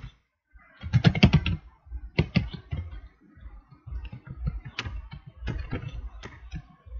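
Computer keyboard being typed on: irregular runs of key clicks, starting about a second in.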